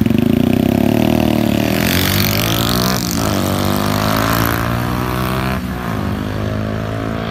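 Yamaha YBR 125G's single-cylinder four-stroke engine through a modified SC Project-style cut exhaust, loud as the bike pulls away hard, its note rising and falling with brief breaks about three and five and a half seconds in.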